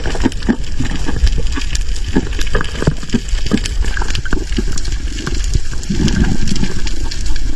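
Water sloshing and gurgling around a spearfisher's camera, with dense crackling and clicking over a steady low rumble, and a thicker run of low knocks about six seconds in.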